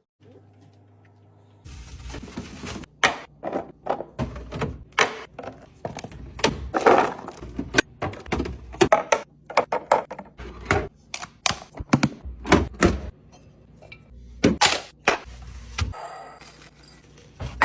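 Containers, bottles and jars being set down and arranged on refrigerator shelves: a quick, uneven series of knocks, clunks and clinks starting a couple of seconds in.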